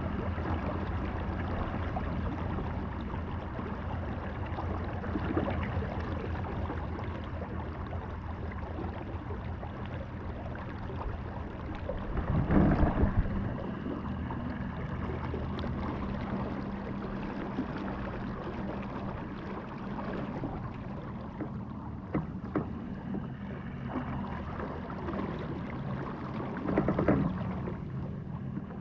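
Motor of a Vibe Yellowfin 100 kayak driving it along: a steady low hum with water rushing past the hull, and two brief louder whooshes, one about halfway through and one near the end.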